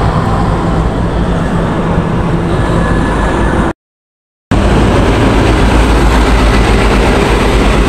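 Steady road traffic noise with a heavy low rumble, broken just under halfway by a gap of total silence lasting nearly a second.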